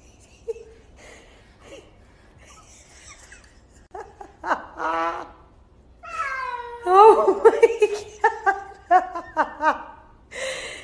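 A cat yowling at a cat statue it takes for a real rival cat. It is quiet at first; about four seconds in comes one cry, then from about six seconds a run of loud, falling, drawn-out cries broken into short pieces.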